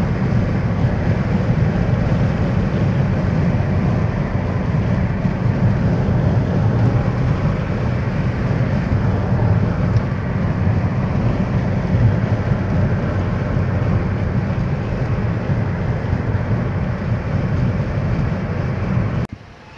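Steady road and engine noise heard inside a moving car on a highway: a dense low rumble with a hiss over it. It cuts off suddenly near the end.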